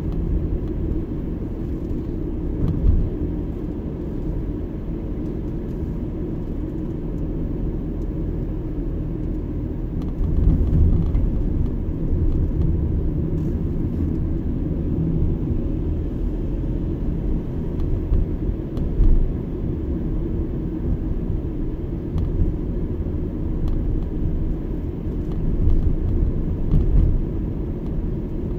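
Car driving at low speed, heard from inside the cabin: a steady low rumble of engine and tyres on the road, swelling a little louder a few times.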